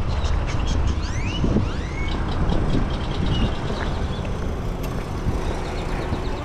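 Heavy vehicle engine running steadily with a low rumble, with faint high chirps and ticks over it.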